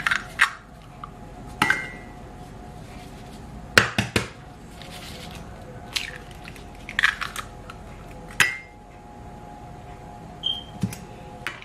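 Eggs knocked against a mixing bowl and a metal fork clinking on it: a series of sharp taps and clinks, a few ringing briefly, over a faint steady hum.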